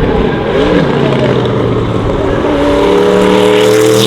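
Sauber Mercedes C9's turbocharged 5.0-litre V8 race engine running, its steady engine note growing louder from about two and a half seconds in.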